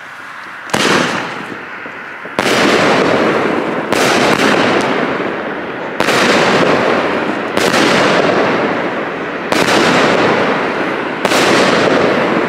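Firework battery (cake) firing aerial shots one after another, seven loud bangs about every one and a half to two seconds, each trailing off slowly before the next.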